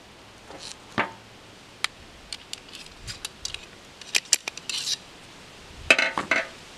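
Small clinks, taps and scrapes of metal and wood as a flintlock pistol is loaded by hand, with a louder clatter of several knocks about six seconds in as the ramrod is picked up off the table.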